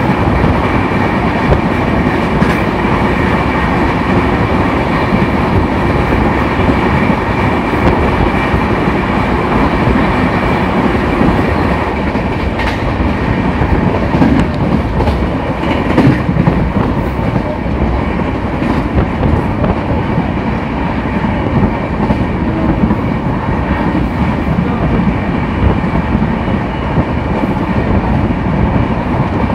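Indian Railways passenger coach running at speed, heard from its open door: a steady rush of wheels on rail with clickety-clack from the track. The noise is fuller at first, while the coach runs close beside a line of covered goods wagons, and thins after about halfway once the track is open.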